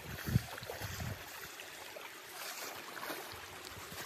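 Shallow rocky stream running as a person wades across it, with a few low thumps in the first second.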